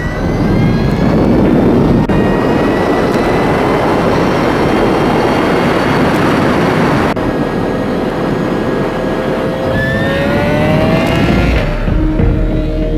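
Energica Ego electric motorcycle ridden at speed: a thin, jet-like electric motor whine climbs slowly in pitch as it accelerates, over loud wind rush. About two-thirds of the way in a new whine starts lower and climbs again, and music with held tones comes in near the end.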